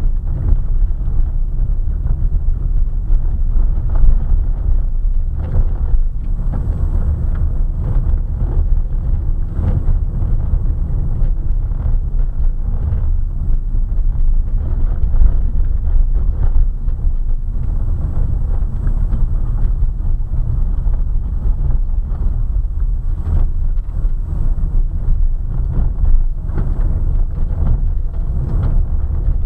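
A car driving on a gravel road, heard inside the cabin: a steady low rumble of tyres on loose gravel, broken by frequent small knocks and rattles as the car goes over bumps.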